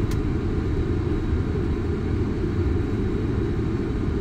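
Steady low rumble on the flight deck of a Boeing 747 rolling on the ground after landing.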